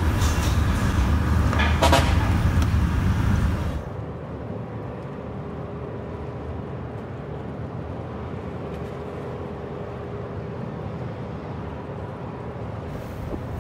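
Road traffic, cars and motorbikes, with a vehicle horn sounding briefly about two seconds in. At about four seconds it cuts off abruptly to a much quieter steady hum.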